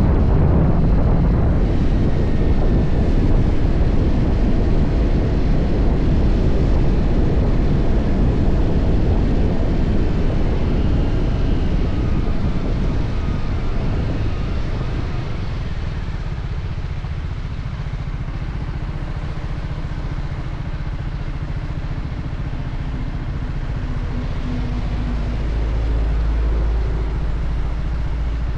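TVS Apache RR 310 single-cylinder engine on its stock exhaust, running under way with a rushing wind and road noise. The noise quietens from about halfway, leaving a lower, steadier engine note near the end.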